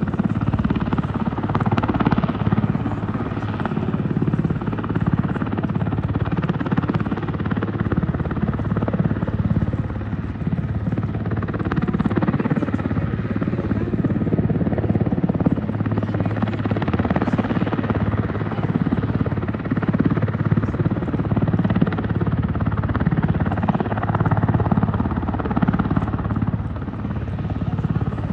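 Military helicopter hovering, its rotor and turbine running steadily throughout.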